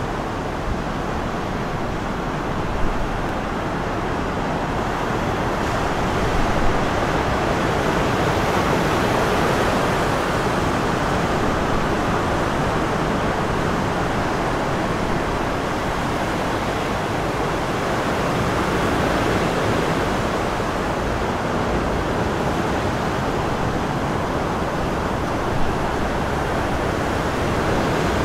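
Steady rush of sea surf, small waves breaking and washing in, with wind over the water.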